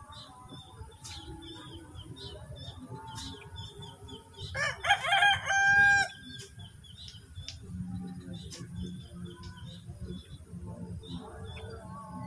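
A domestic rooster crows once, loud, about four and a half seconds in: a rising call that holds its pitch for about a second and a half. Many small high chirps repeat throughout, and a faint low hum comes in from about eight seconds.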